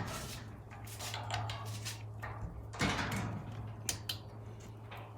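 Metal clunks and scraping with a few sharp clicks near the end as roller door motor parts are handled and a locating pin is pushed through, over a steady low hum.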